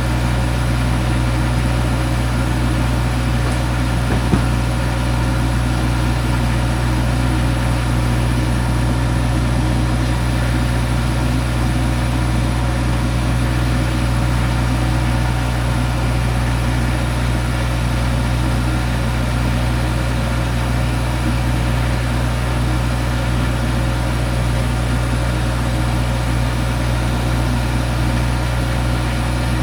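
An engine idling steadily with a deep, even hum, and a single short knock about four seconds in.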